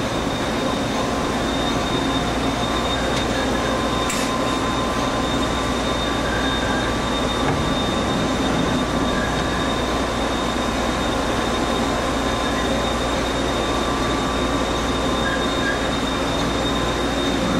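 Cincinnati-Milacron 18C CNC turning center running behind its closed door: a steady mechanical whir with a constant high whine and lower hum, unchanging throughout.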